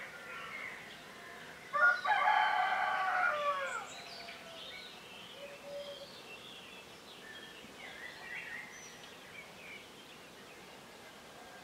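A rooster crows once, about two seconds in, a call lasting about two seconds that drops in pitch at its end. Songbirds chirp faintly throughout.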